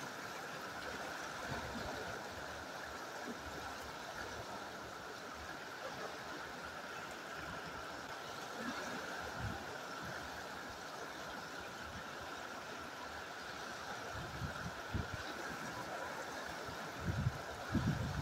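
Fast-flowing river rapids rushing steadily, with a few short low thumps near the end.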